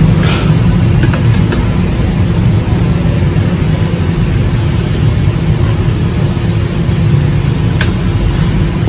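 Steady low background rumble, with a few light clinks of a metal spoon against a fruit-cocktail tin as pieces are scooped out: one just after the start, a few about a second in, and one near the end.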